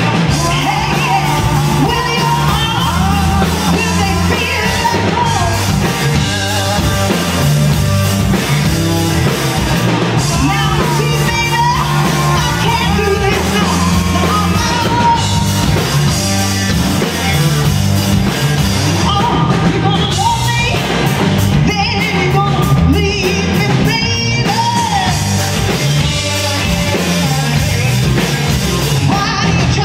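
Live rock band playing loudly: a woman sings into a microphone over electric guitars, bass and a drum kit.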